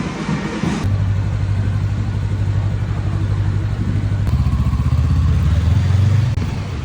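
A motor vehicle's engine running close by, a low steady hum that starts about a second in, drops in pitch around four seconds in, rises again near six seconds, then eases off.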